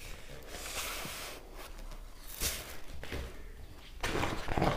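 Paper rustling as the pages of a large glossy hardback book are handled, with a louder rustle near the end as a page is turned.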